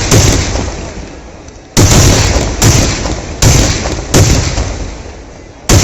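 Festival fireworks exploding: about six loud booms, roughly a second apart, each followed by a long rolling rumble that fades before the next bang.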